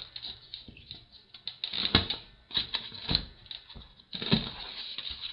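Hands handling printed pictures: a string of irregular clicks, taps and paper rustles, with a few stronger knocks about 2, 3 and 4 seconds in.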